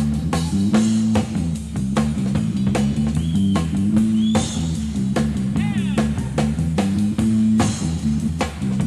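Rock band playing an instrumental jam live on electric bass guitar, drum kit and electric guitar: a repeating bass line under steady drumming, with a few short sliding high notes in the middle.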